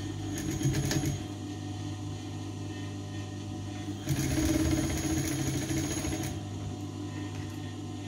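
Sewing machine stitching a seam in two runs: a short one near the start and a longer, louder one of about two seconds from about four seconds in, over a steady low motor hum.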